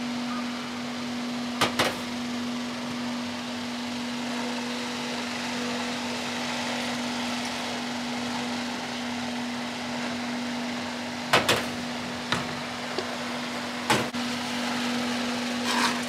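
A steady machine hum with a constant tone runs underneath a handful of short, sharp knocks and clinks. The knocks are plastic juice jugs and a glass being handled and set down on a bar counter while layered juice is poured. Near the end a knife strikes a cutting board.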